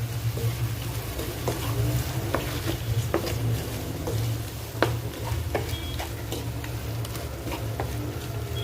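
Chicken in a sizzling soy-and-vinegar sauce being stirred in a pan, the spoon clicking and scraping against the pan at irregular intervals. A steady low hum runs underneath.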